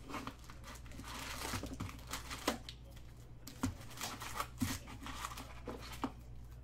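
Plastic shrink-wrap being torn and crinkled off a sealed box of trading cards, followed by a few light knocks and clicks as the cardboard box is handled and opened.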